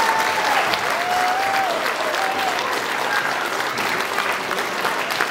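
Audience applauding, a dense steady clapping, with a few drawn-out calls or whoops over it in the first two seconds or so.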